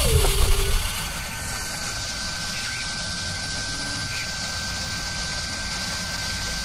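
Machining sound effect under an animated machine spindle: a loud low hit at the start with a tone sliding down in pitch, then a steady mechanical whir with a thin, high, unchanging whine.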